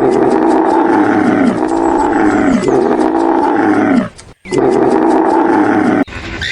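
Lion roaring: a series of loud, long calls, each sagging in pitch at its end, with a short break about four seconds in.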